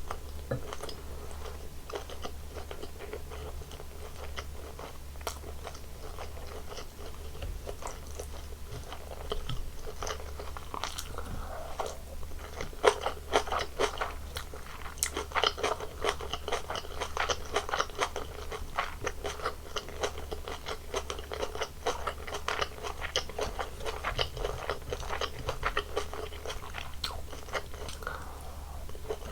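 Close-miked chewing with crisp, crackly crunches, busiest through the middle of the stretch.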